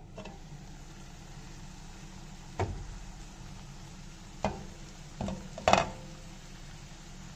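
A pan of steamed taro and onions sizzling steadily once its lid is lifted, with several sharp knocks and clinks of cookware. The loudest comes near the end and rings briefly.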